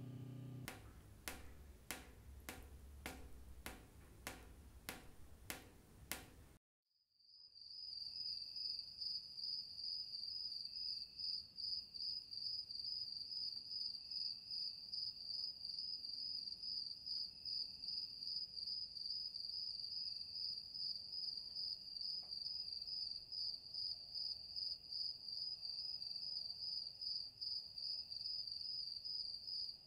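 Sharp clicks about twice a second for roughly six seconds, then a sudden cut to silence. From about a second later, crickets chirp in a steady, high, rapidly pulsing trill.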